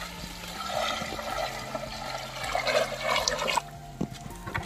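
Water poured from a plastic bucket into a metal basin of raw chicken pieces to wash them, a steady splashing pour that stops about three and a half seconds in, followed by a couple of light knocks.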